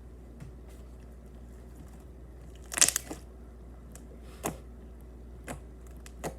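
Slime being squeezed and worked by hand, giving a few short crackling pops, the loudest just under three seconds in, over a low steady hum.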